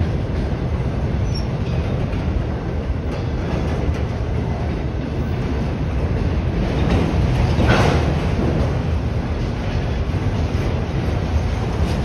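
Freight train's enclosed autorack cars rolling past close by: a steady rumble of steel wheels on rail, with a brief louder rush about eight seconds in.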